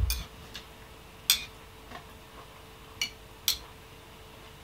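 Metal spoon clinking against a ceramic bowl of cereal and milk, about six light, separate clinks at uneven intervals.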